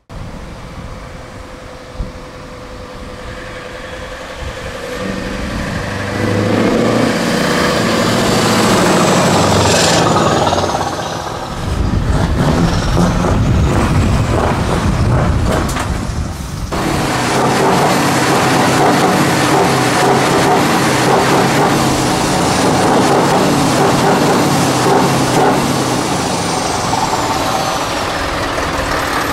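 Scania V8 truck with an open exhaust pipe accelerating past, its engine note climbing and getting louder over several seconds, then running hard as it pulls away. After a sudden cut, a truck engine runs steadily at a near-idle.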